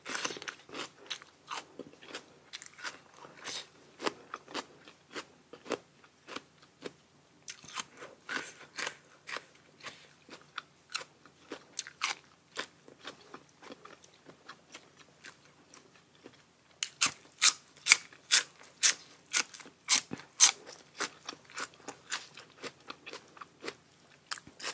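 Close-miked chewing and crunching of crisp food, a quick run of crunches about two or three a second, with a short lull past the middle and the loudest crunches a few seconds later.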